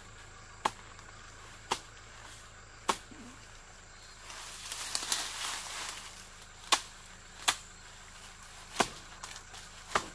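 Sharp single knocks, about one a second, from hand work in dry leaf litter at the base of a tree. Between the knocks, around the middle, dry leaves and debris rustle.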